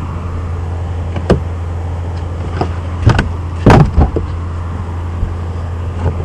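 Packages being handled and opened: several short knocks and rustles, the loudest about four seconds in, over a steady low engine hum.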